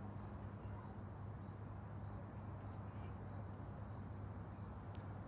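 Faint steady background hum with a thin, steady high-pitched tone above it.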